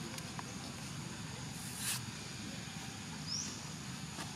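Outdoor woodland ambience: a steady background hum of insects with a short, quickly rising bird chirp about three seconds in, and a brief hiss of noise a little before the middle.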